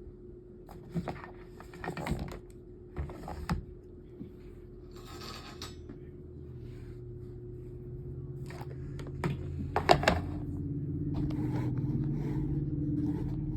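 Plastic table-fan parts being handled and fitted together, with irregular clicks, knocks and a scrape. About halfway in, a low droning hum starts to build and grows louder toward the end.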